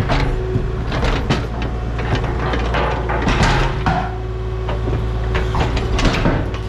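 Heavy machinery engine running steadily, with repeated knocks and scraping of equipment working at the dig.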